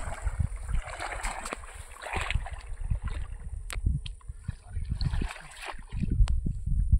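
Wind buffeting the microphone in irregular low rumbles, with water sloshing and grass rustling as a man wades through reeds along the lake's edge.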